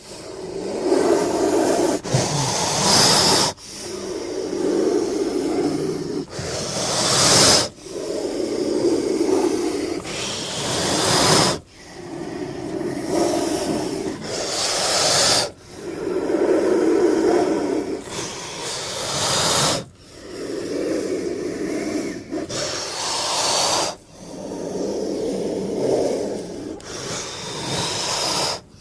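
Giant-snake creature sound effect of the Titanoboa: a rasping, hissing breath repeated about every four seconds, each cycle building to a sharper, brighter hiss before cutting off.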